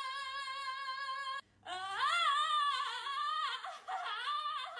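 A high voice singing without words. It holds one long steady note that cuts off about a second and a half in, then sings a short melody sliding up and down, then holds another steady note near the end.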